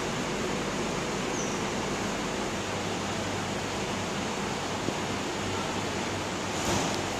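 Steady background hiss with a faint low hum, typical of station ventilation or air-conditioning noise, and a brief rustling swell about six and a half seconds in.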